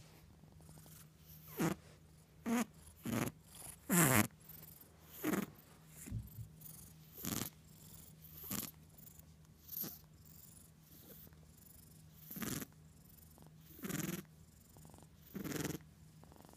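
Gray tabby kitten purring while being stroked, close to the microphone. A steady low rumble runs under louder, breathy pulses that come about once every second or so.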